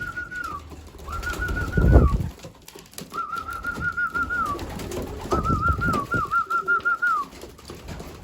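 Trilled, warbling whistle repeated five times, each phrase about a second long at a steady pitch and dropping at its end: a pigeon keeper's whistle call to bring racing pigeons in to feed. Pigeons coo faintly in the loft, and there is a loud rustle or flutter about two seconds in.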